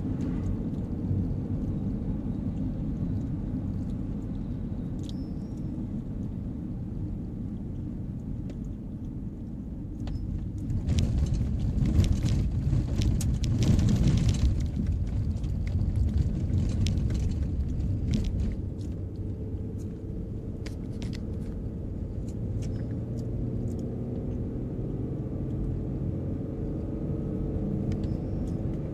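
Road noise heard inside a moving car: a steady low rumble of tyres and engine. For several seconds in the middle it grows louder, with a scatter of sharp ticks as the tyres run on a gravel road. In the last several seconds it is smoother, with a faint engine tone rising in pitch.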